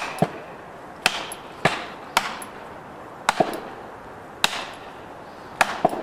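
A hammer striking yellow plastic felling wedges driven into the cut of a large tree trunk, which forces the tree to tip over. There are about ten sharp blows at an uneven pace, some in quick pairs.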